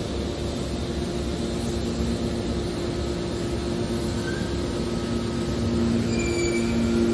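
Hydraulic scrap metal baler running: the pump unit gives a steady mechanical hum with two low droning tones, which grow stronger about six seconds in as the machine works.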